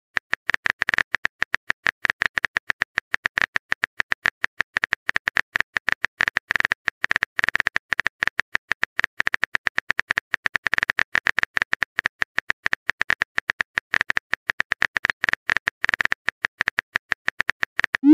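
Simulated phone-keyboard typing sound effect: a fast, uneven run of short key clicks, as a message is typed out in a texting app.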